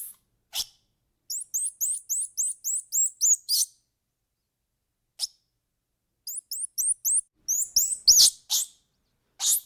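A small bird chirping in two quick runs of high, rising notes, about four a second, starting about a second in and again about six seconds in. Short, harsh, raspy calls come between the runs.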